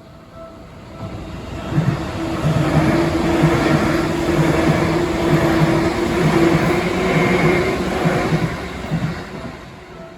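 Seibu Ikebukuro Line train passing through a level crossing. It rises from about a second in, stays loud for several seconds with a steady hum and a rhythmic clatter of wheels, then fades away near the end. The crossing's warning bell rings at the start and can be heard again as the train dies away.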